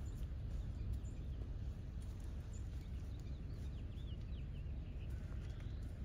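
Steady low outdoor rumble, with a quick series of faint high bird chirps about three to four and a half seconds in and another faint call shortly after five seconds.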